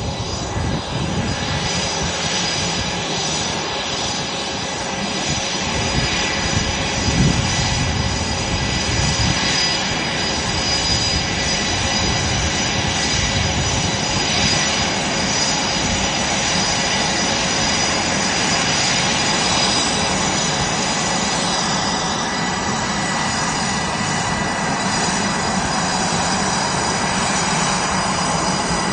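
Fighter jet's engines running as it taxis, a steady jet rumble with a high whine held throughout.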